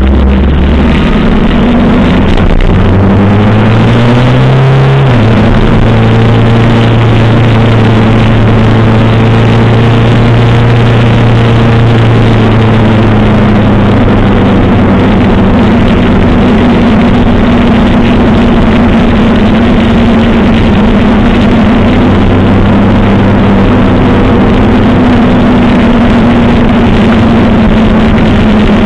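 1985 Suzuki GS700ES air-cooled inline-four engine accelerating, rising in pitch until a gear change about five seconds in, then running steadily at cruising speed, with wind rush over the microphone.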